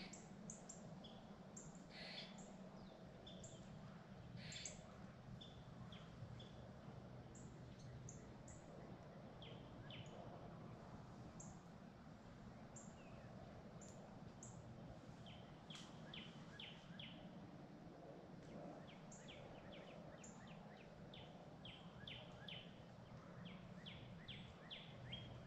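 Faint woodland birdsong: short, high chirps scattered throughout, with quick runs of repeated chirps in the second half, over a faint steady low hum.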